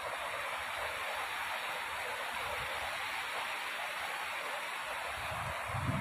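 Shallow river flowing over a stony bed: a steady rushing and babbling of water. A low rumble begins just before the end.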